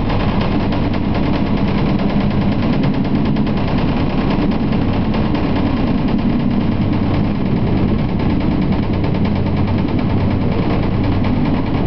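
Bell 214ST helicopter's rotor beating in a rapid, steady rhythm as it hovers, lifting a slung load on a longline.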